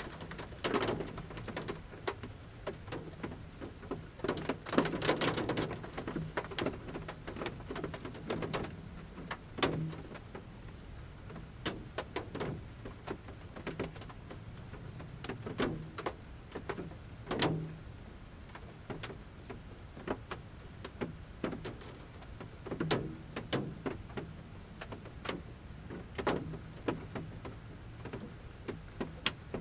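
Large raindrops dripping from the forest canopy onto the roof of a camper van, heard from inside: irregular taps, in thicker clusters near the start and about five seconds in, then mostly single heavy drops every second or few seconds.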